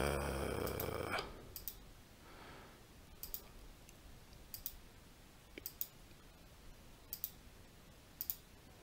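A brief hum lasting about a second at the start, then computer mouse button clicks, mostly in quick press-and-release pairs, about six times at intervals of a second or so.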